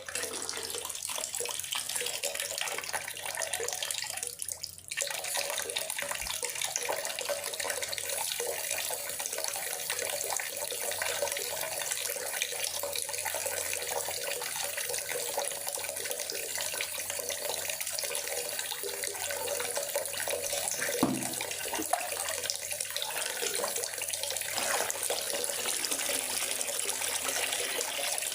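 Steady rain, an even hiss of falling drops that briefly dips about four and a half seconds in.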